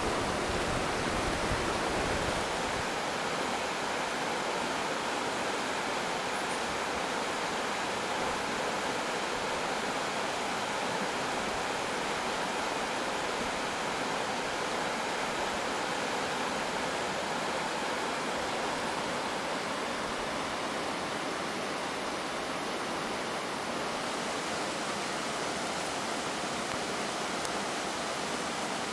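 Steady rush of a clear river flowing over rocks and boulders.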